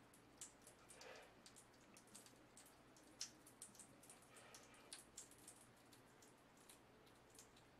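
Faint crackle of a bath bomb fizzing in bath water: scattered tiny pops and clicks of bursting bubbles, several a second, over a soft hiss.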